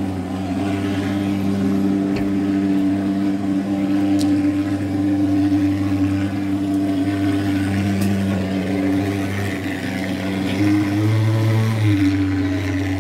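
Engine-driven smoke fogging machine running with a steady low drone, its pitch rising briefly about eleven seconds in.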